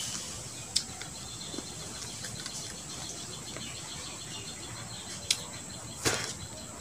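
Insects buzzing: a steady high-pitched drone over a quiet outdoor background, with a few sharp clicks about a second in and twice near the end.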